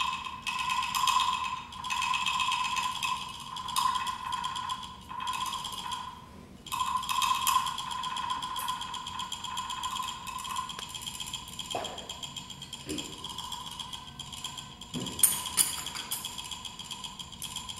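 A hand-held brass bowl ringing with a sustained, pulsing high tone. Near the end come a few short sounds sliding down in pitch, then two sharp metallic strikes.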